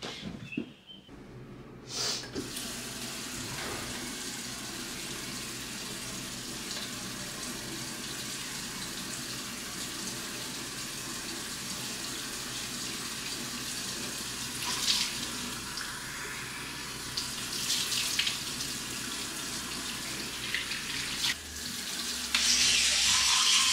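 Water running from a tap into a sink. It comes on about two seconds in and runs steadily, with a few brief louder moments, growing louder near the end.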